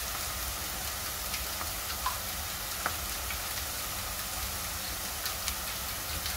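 Sliced onions and garlic frying gently in oil in an aluminium pan: a steady, soft sizzle with a few small pops spread through it.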